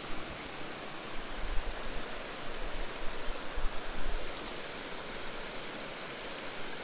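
A small creek's water running steadily, with low rumbling buffets on the microphone over the first four seconds or so.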